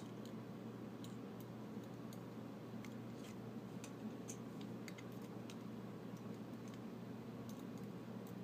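Faint, irregular light clicks of small metal lock parts, the pins, plug and cylinder of a disassembled Sargent lock, being handled on a work surface, over a low steady hum.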